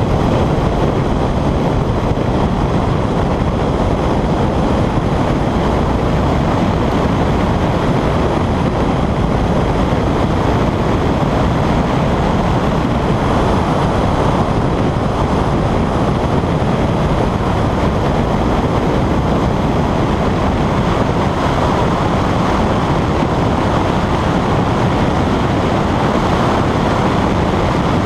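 Steady wind rumble buffeting the microphone of a camera mounted on the outside of a Honda CR-X driving at speed, with the car's engine blended into the noise and no clear engine note standing out.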